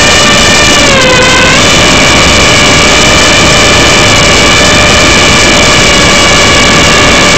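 JJRC H30CH mini quadcopter's motors and propellers whining steadily, picked up loud and close by the drone's own onboard camera. The pitch dips briefly about a second in and then climbs back as the throttle changes.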